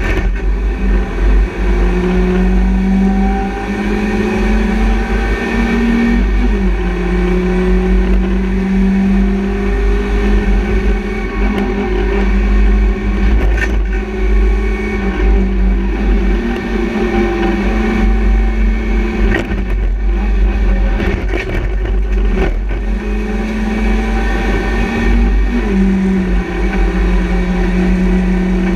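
BMW Compact race car's engine heard from inside the stripped cabin under hard driving, its note rising as it revs and stepping down at gear changes, over heavy road and wind rumble. A few sharp clicks or knocks cut through.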